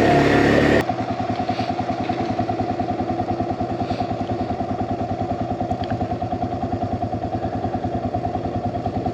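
ATV engine running at a low, steady speed with a regular pulsing beat. A louder, busier stretch of engine noise ends abruptly about a second in.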